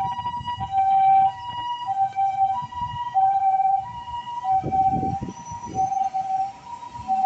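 Japanese ambulance's electronic two-tone 'pee-po' siren from a remote siren unit, alternating steadily between a high and a low tone, each held for about two-thirds of a second. A brief low rumble of vehicle noise comes about five seconds in.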